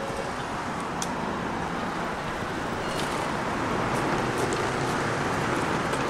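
A Japanese railway crossing's warning bell stops ringing right at the start. After that there is a steady rush of city street and traffic noise with a few faint clicks.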